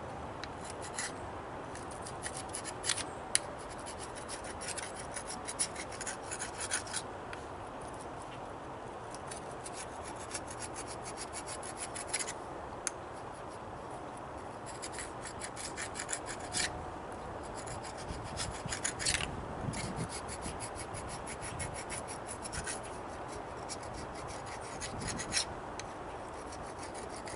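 Sharp hand scraper scraping old paper gasket off the thermostat gasket surface, in short bursts of quick scratchy strokes with pauses between them.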